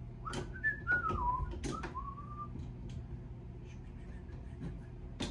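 A person whistling a short wavering tune for about two seconds, with a few sharp metallic clicks from a wrench working a water filter fitting. A low steady hum runs underneath.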